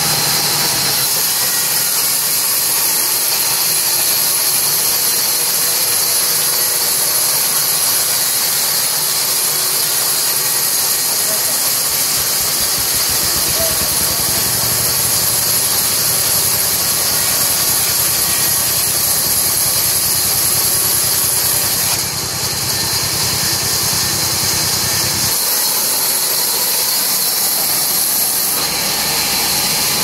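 Sawmill band saw running and cutting through timber planks: a loud, steady hiss and whine, with a deeper rumble that comes in about twelve seconds in and drops away again near the twenty-five-second mark.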